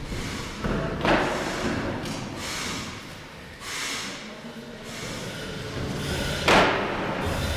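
A firefighter's heavy breathing through a breathing-apparatus face mask: a hissing breath about every second and a half. Two heavy thuds of boots on the floor come about a second in and near the end, the second one the loudest.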